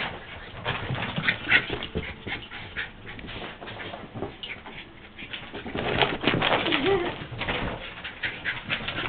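Dogs scrambling after a laser dot, their claws clicking and scuffling rapidly on the floor, with a short wavering dog whine about two-thirds of the way through.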